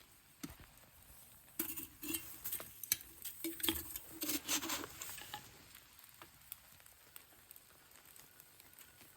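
Steak and vegetables frying in a pan on a wood stove, with a busy flurry of clicks and scrapes from a utensil stirring them between about one and a half and five and a half seconds in.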